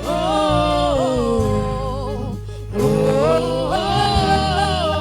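A solo voice singing a slow gospel worship song with instrumental backing, holding long notes that slide and bend, with a short break just before the middle.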